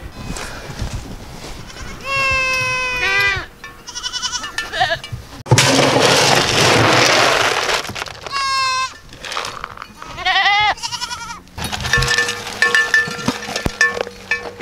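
Goats bleating: four quavering calls, the first one long and falling away at its end. A loud rushing noise lasts a couple of seconds in the middle, and there is some clattering near the end.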